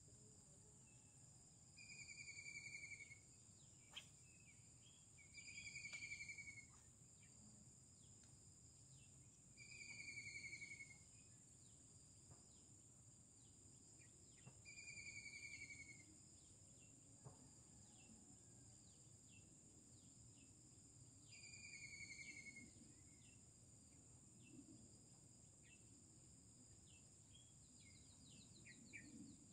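Steady high-pitched insect drone, with a bird calling a single falling whistled note five times, a few seconds apart. There is also a sharp click about four seconds in.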